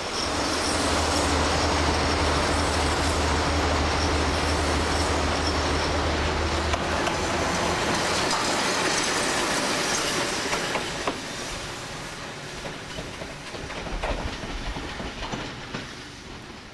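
JNR EF65 electric locomotive passing close by while shunting, with wheels running over rail joints and a steady low hum that stops about seven seconds in. The noise falls away after about ten seconds, leaving scattered clicks and knocks from the wheels on the track.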